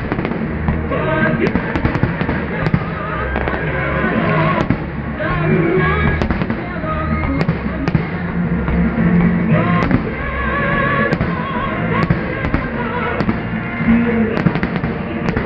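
Fireworks salute going off, many sharp bangs in irregular succession, with music playing underneath.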